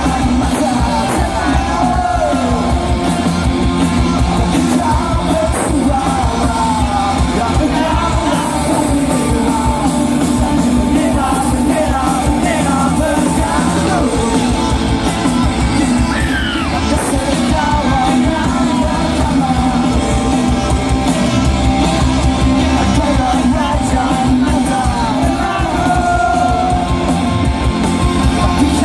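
Live rock band playing through a large stage PA, with singing and the crowd yelling along.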